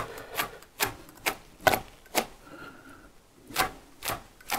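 Pencil drawing hatching strokes along a ruler on a wooden furniture leg: a quick run of short scratches, about two a second, with a pause of about a second midway.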